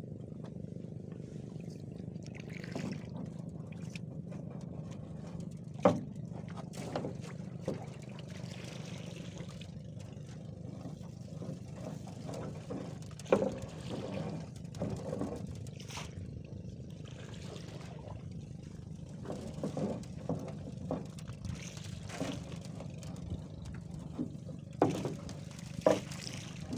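Collapsible trap nets (lừ) being handled on a wooden boat: mesh shifting and a handful of sharp knocks as the wire-framed nets are moved, over a steady low rumble.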